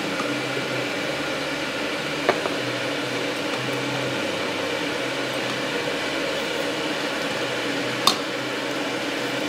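Steady mechanical hum with hiss, like a running kitchen appliance or fan. A metal fork clinks against a glass jug twice, faintly a couple of seconds in and more sharply near the end.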